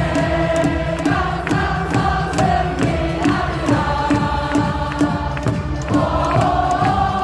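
Many voices singing a chant in unison over a steady beat.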